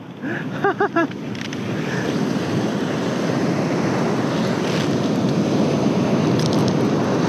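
Ocean surf washing up a sandy beach, a steady rush that builds about a second in and holds, with wind on the microphone.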